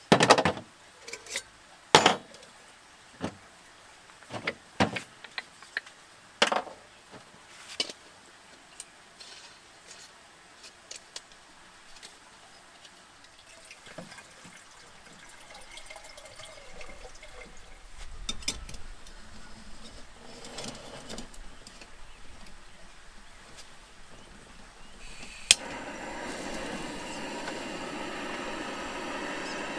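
Small portable gas canister cooker being put together, with a series of clicks and knocks of metal parts, then quieter handling. Near the end a sharp igniter click, and the burner lights with a steady gas hiss.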